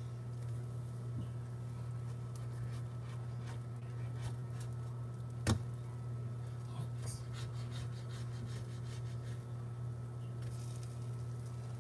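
Quiet handling of pancake-batter squeeze bottles and utensils at a griddle over a steady low hum, with one sharp knock about halfway through and a few faint ticks.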